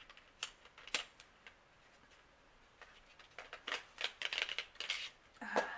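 Small clicks and rustles of a cosmetic pencil and its packaging being handled and opened, a few separate clicks at first and then a quicker cluster of them; a brief hummed voice sound near the end.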